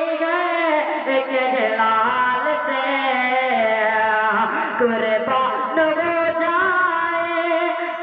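A man singing a naat into a microphone over a PA, holding long, wavering notes.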